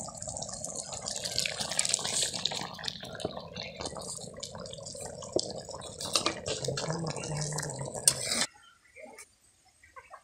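Curry with fried egg pieces boiling in a wok: a steady bubbling with many small pops. It cuts off sharply near the end.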